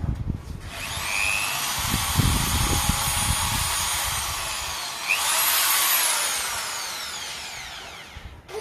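Corded electric drill boring into a coconut. The motor whines up to speed about half a second in and runs steadily with some low rattling from the bit. It speeds up again around five seconds, then slows with falling pitch and stops near the end.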